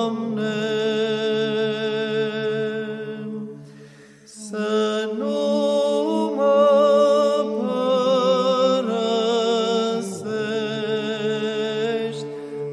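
Slow chanted vocal music: long sung notes with vibrato moving in steps over a steady low held drone, with a short break in the singing about four seconds in.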